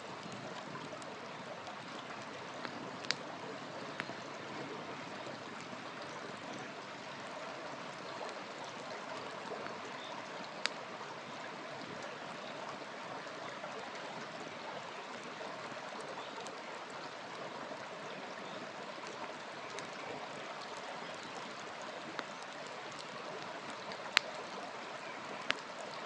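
Wood campfire burning, with a handful of sharp crackles and pops, the loudest near the end, over a steady rushing noise.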